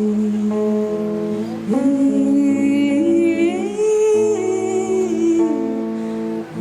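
Live music: a female singer's wordless vocal, humming or singing held, gliding notes with vibrato, over instrumental accompaniment, continuing the song without lyrics.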